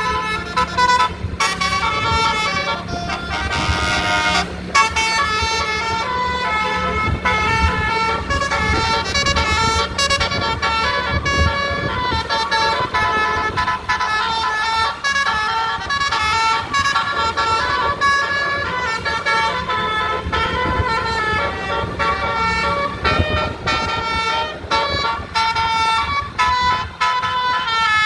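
A 12-note basuri, the Indonesian 'telolet' musical bus horn, playing a fast tune of stepped horn notes, several pitches sounding at once, over a low steady hum.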